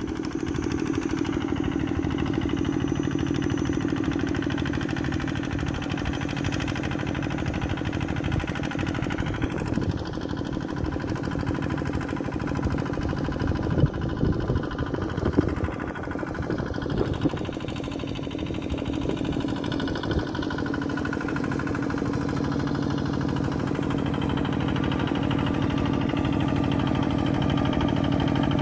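Kubota RT140 single-cylinder diesel engine of a walk-behind two-wheel tractor running steadily under load as it drags a levelling board through paddy mud. It grows a little louder over the last few seconds as the tractor comes closer.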